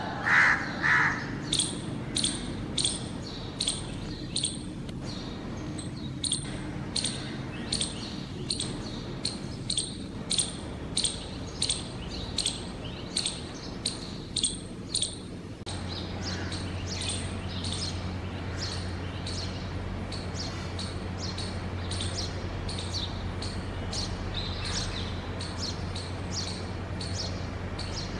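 Bird chirping over and over, about two short, sharp chirps a second, with a louder, harsher call at the very start. About halfway a low steady hum comes in under the chirping.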